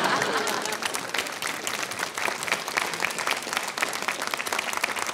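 Studio audience applauding: dense, many-handed clapping that slowly eases off.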